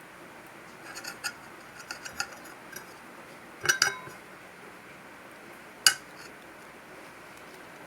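Hard objects being handled and set down, making a few light clinks and clicks, a louder double clack about halfway through, and one sharp click near six seconds.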